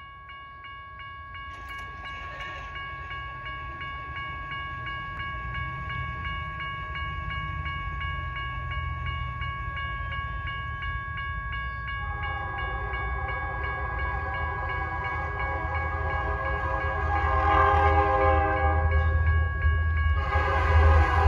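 Grade-crossing signal bell ringing with fast, even strokes. From about halfway, an approaching locomotive's horn sounds the crossing signal in long blasts. Under both, the train's rumble grows steadily louder.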